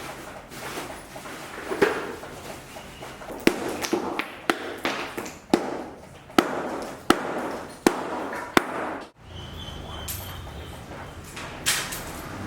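Hammering on a building site: a run of sharp, ringing blows, about one a second, with a brief cut-out near the end before a steady low hum takes over.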